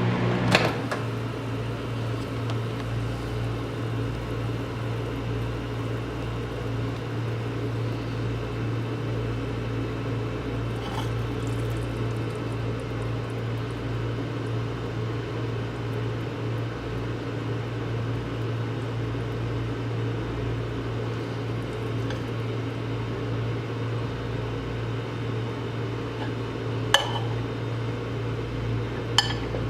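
Microwave oven running with a steady hum, with a sharp click about half a second in and two more near the end.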